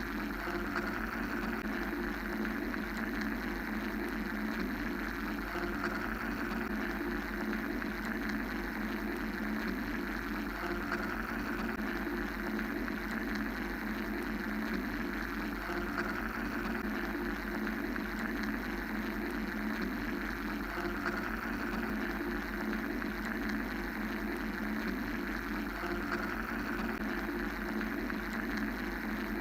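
Steady mechanical whirring drone played as a continuous white-noise bed, with a low hum underneath and a gentle swell about every five seconds.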